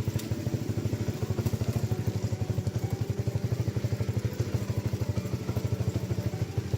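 A small engine running steadily, with a fast, even putter of about a dozen beats a second.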